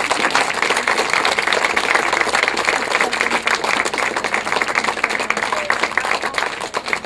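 A crowd applauding: dense, steady clapping that thins out near the end.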